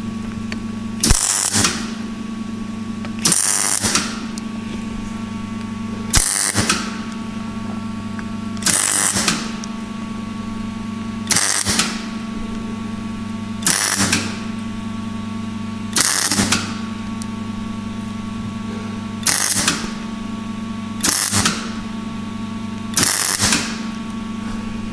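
MIG welder arc welding a Lambda Boss oxygen-sensor bung onto an exhaust adapter pipe in short bursts: a crackling sizzle about half a second long, ten times, every two to three seconds. A steady electrical hum runs beneath.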